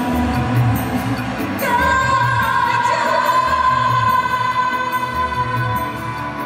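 A singer performing a dangdut song over a karaoke backing track with a steady beat, heard through the hall's loudspeakers. About two seconds in, the voice holds one long note until near the end.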